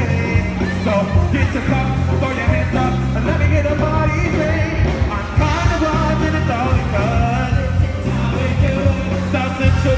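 Live party band playing an upbeat dance song, a singer over a strong bass line and drums.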